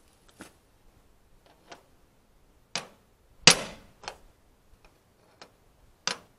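Small hammer tapping a punch held against an aluminum diamond-plate truck toolbox, starting a hole to mount a CB antenna: a string of sharp taps at uneven intervals, the loudest about halfway through.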